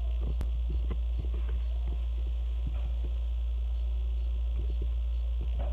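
Steady low hum under the recording, with faint scattered clicks and small handling noises as a squishy toy is handled.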